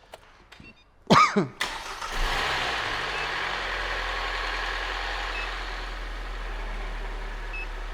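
Freshly overhauled Kia G4NA 2.0-litre four-cylinder engine starting: it catches about a second in with a short loud flare, then settles into a steady idle on its first run after the rebuild.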